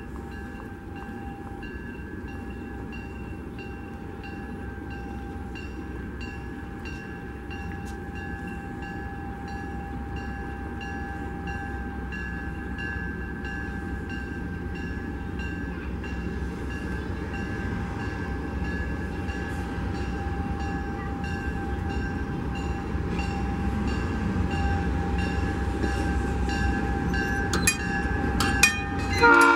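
Southern Pacific 3100 diesel locomotive approaching with a passenger train, its low engine rumble growing steadily louder, while a steady ringing with regular ticks runs throughout. Its horn starts to blow at the very end.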